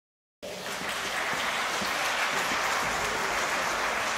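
Audience applauding steadily in a concert hall, starting about half a second in.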